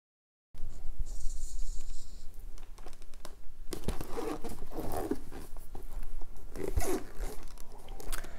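Cardboard gift box being handled and opened: rustling and scraping of card and paper, with a brief higher scrape about a second in.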